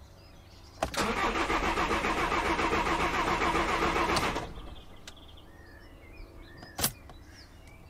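VW Crafter diesel van's starter motor cranking the engine after a click, pulsing evenly for about three and a half seconds, then stopping without the engine catching; another click follows a couple of seconds later. It is a no-start: the electrical connection on top of the refitted fuel tank had been left unplugged.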